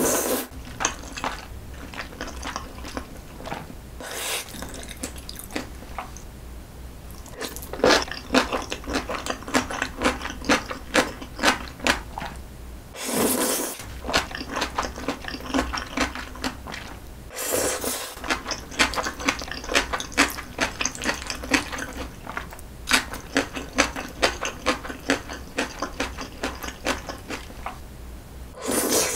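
Close-miked eating of jjajangmyeon (wheat noodles in black bean sauce): wet chewing with rapid mouth clicks and smacks. Several hissy slurps of about a second each pull noodles into the mouth, the loudest about halfway through and again a few seconds later.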